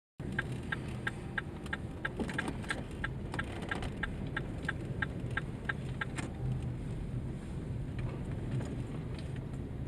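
Car engine running with a steady low hum, with a regular ticking about three times a second that stops about six seconds in.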